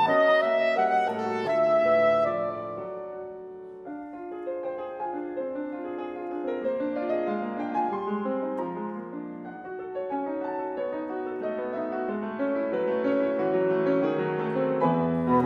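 Steinway grand piano and saxophone playing classical chamber music. The saxophone's sustained melody fades out about three seconds in, leaving the piano alone playing many quick, rippling notes that build in fullness towards the end.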